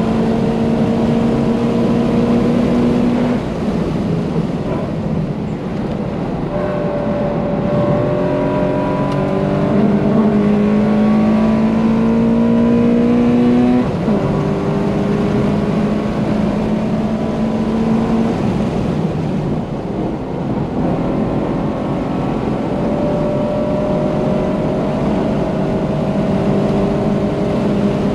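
Modified Subaru BRZ flat-four engine with a catless exhaust, unequal-length header and aftermarket intake, held at high rpm under hard acceleration, heard from inside the cabin over road noise. Its pitch climbs slowly and falls back sharply several times, a few seconds in, about halfway, and again a few seconds later.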